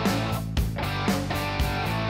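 Background music with guitar and a steady beat of about two beats a second.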